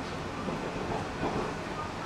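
Steady running noise of a diesel railcar heard inside the passenger cabin: an even low rumble with hiss.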